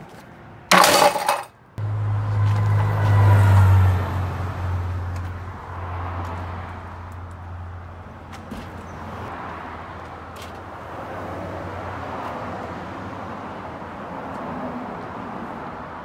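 A wooden loading ramp faced with a metal plate clatters loudly against a van's bumper about a second in. A vehicle then goes by with a low hum that fades over several seconds. Faint knocks follow as a dirt bike is pushed up the ramp into the van.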